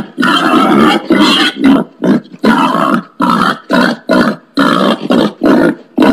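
Wild pig giving a rapid series of short, harsh grunts, about two a second.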